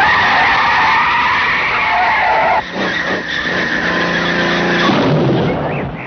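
Car tyres skidding with a long screech as the car's smooth, worn tyres lose grip. About two and a half seconds in, the screech cuts abruptly to a lower, steady humming noise that fades near the end.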